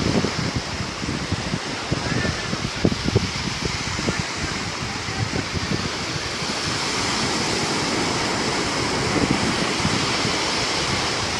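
Sea surf washing on the shore in a steady rush that swells a little about halfway through, with wind buffeting the microphone in short low thumps.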